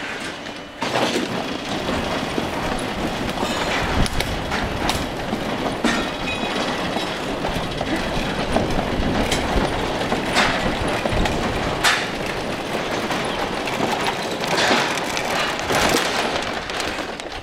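Steel framework of a fairground ride being moved during assembly: continuous metallic rattling and rumbling that starts loud about a second in, with frequent sharp knocks and clanks.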